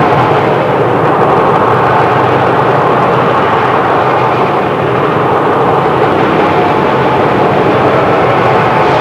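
Train sound effect: a loud, steady running noise with no breaks.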